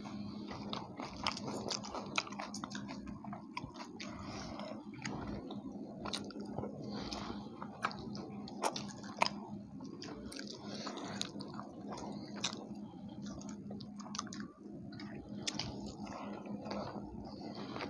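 Two people eating puri with haleem close to the microphone: steady chewing and biting with many irregular sharp clicks, over a steady low hum.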